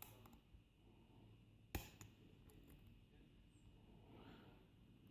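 Near silence with a single sharp click about two seconds in, from a pick and tension tool working the pins of a euro lock cylinder.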